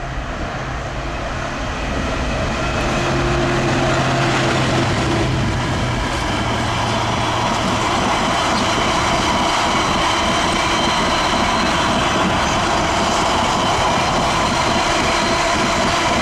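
A Class 66 diesel locomotive's two-stroke V12 engine drumming as it passes at the head of a container freight train, growing louder over the first few seconds, then the long rake of loaded container wagons rolling past with a steady rumble and rail noise.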